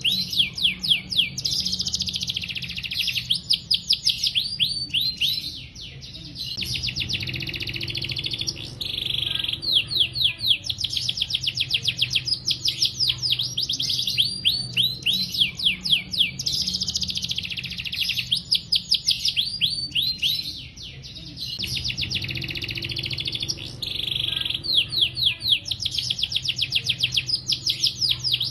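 Domestic canary singing a long, nearly unbroken song of rapid trills and fast runs of repeated high sweeping notes, pausing only briefly between phrases, over a faint steady low hum.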